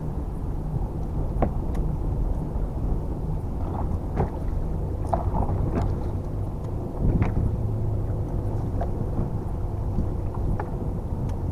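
Wind buffeting the microphone on a bass boat, a steady low rumble, with scattered small clicks and water slaps against the hull and a faint steady hum underneath.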